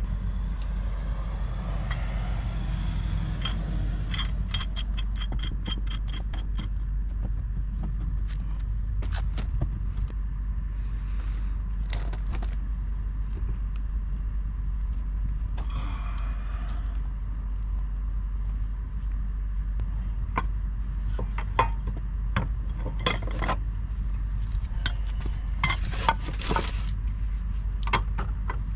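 Pipe wrench working on old threaded steel gas fittings at a meter: metal clicks, scrapes and knocks over a steady low rumble. There is a quick run of ticks a few seconds in, and sharper knocks and clanks come near the end.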